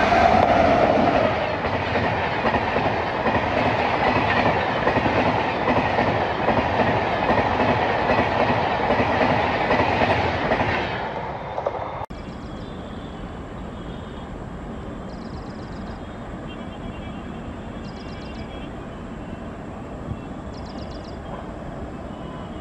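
WAP-7 electric locomotive hauling an express train passing close at speed, the clatter of coach wheels over the rails fading away over about ten seconds. After a sudden cut about twelve seconds in, only quieter steady background noise remains.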